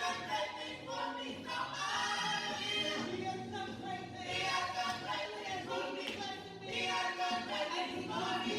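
Church choir singing a praise song.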